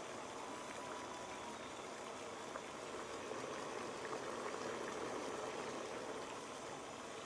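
Water boiling under a steamer tray of cauliflower and broccoli in an uncovered frying pan: a steady bubbling with a few small pops.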